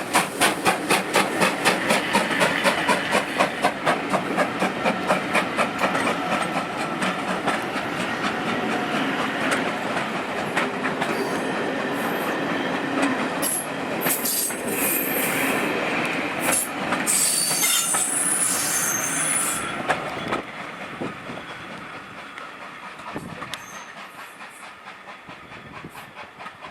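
Train passing on the rails: a regular beat of about two to three pulses a second at first, then steady rolling with high-pitched wheel squeals. It fades away after about twenty seconds.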